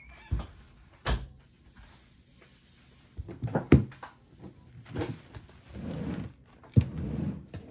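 Several sharp knocks and thumps with bursts of rustling handling noise as a person sits down at a table and moves things on it; the loudest knock comes a little past the middle.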